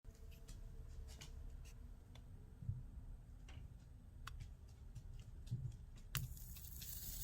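Faint, scattered light clicks and taps, about eight in all, over a low steady rumble.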